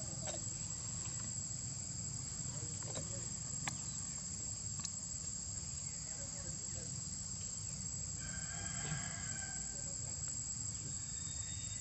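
A steady, high-pitched chorus of insects drones without a break. About eight seconds in, a short call with several tones rises over it.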